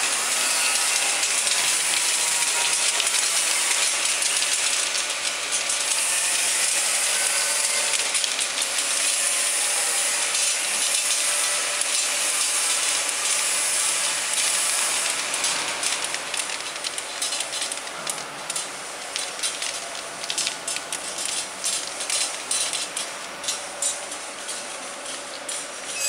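Rotary bottle-feeding turntable of an essential oil filling and capping machine running, with small glass bottles jostling against each other and the steel guide rails in a dense clatter. About two-thirds of the way through it gets quieter and thins into separate clinks.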